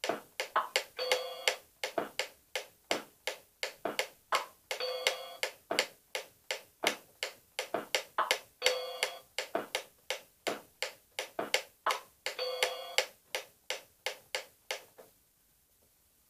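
Wooden pyramid clockwork metronome ticking steadily, about two to three ticks a second, with its bell ringing once every four seconds or so to mark the start of each bar. The ticking stops about 15 seconds in, when the pendulum is halted by hand.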